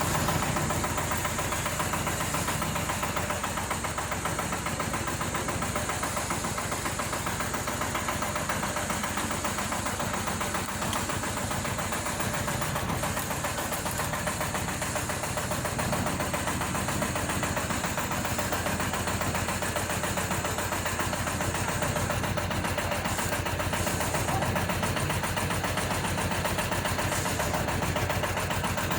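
Mini excavator's small engine running steadily, with a fast, even clatter of firing pulses.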